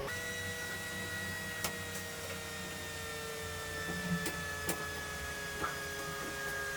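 A steady high-pitched hum of several held tones, sliding slowly down in pitch, with a few short clicks.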